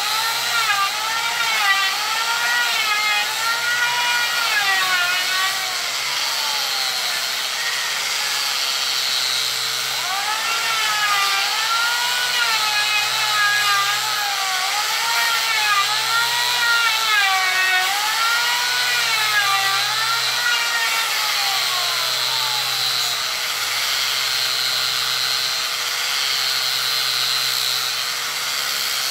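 Electric random orbital sander running on a solid jackfruit-wood door. A steady motor tone runs throughout, joined by a whine that rises and falls in pitch about once a second over two long spells, each ending in a falling glide.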